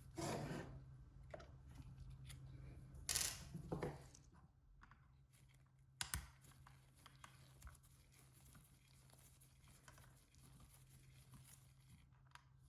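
Quiet workbench handling noises: two short scraping rustles, one at the start and one about three seconds in, then a sharp click about six seconds in and scattered light ticks, over a faint steady hum.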